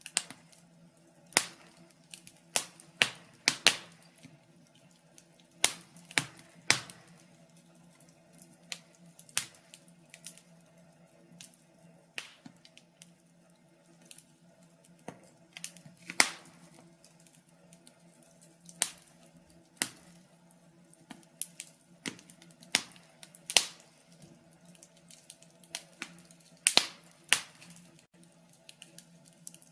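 Fire in a fireplace crackling: irregular sharp pops and snaps, a handful much louder than the rest, over a faint steady low hum.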